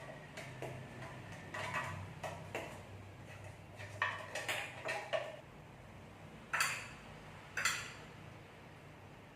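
Cooking utensils clinking and scraping against metal cookware in scattered short knocks, with two longer, louder scrapes near the end, over a faint steady low hum.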